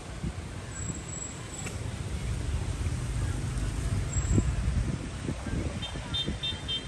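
Street ambience: traffic passing along the road and indistinct voices, over a steady low rumble.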